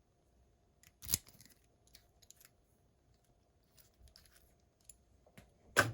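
Padlocks and keys being handled and set down: a sharp metallic clack about a second in, scattered light clicks, then a louder clack near the end.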